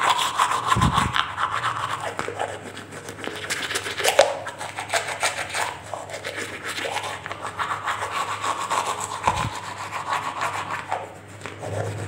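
Toothbrush scrubbing teeth in rapid, irregular back-and-forth strokes, a wet scratchy rubbing.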